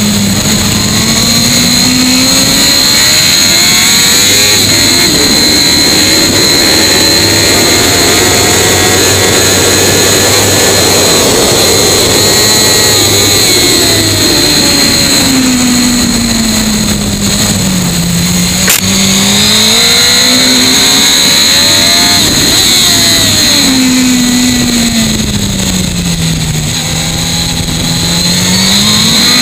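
Suzuki GSX-R1000 L6's inline-four engine at full throttle on a circuit lap, recorded from a camera on the bike's fairing. The engine note rises and falls over several seconds at a time as the bike accelerates and slows for corners, over a steady rush of noise.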